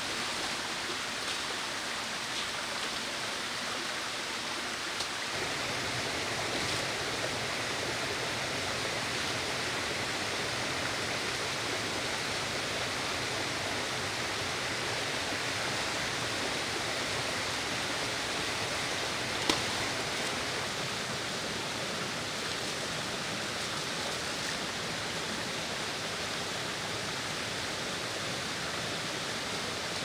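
Steady rushing sound of water, with a single sharp click about twenty seconds in.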